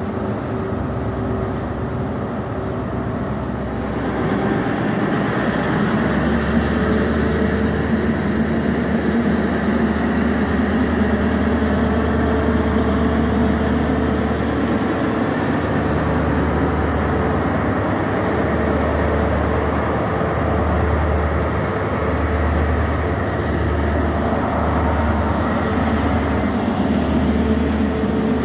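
Class 43 HST diesel power car passing at close range, its engine running with a low throbbing drone over the rumble of the train. It gets louder about four seconds in as the locomotive draws level.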